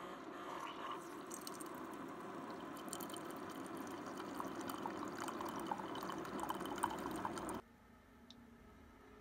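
Keurig single-serve brewer dispensing a hot drink into a ceramic mug: a steady pouring hiss with small drips, cutting off suddenly about seven and a half seconds in.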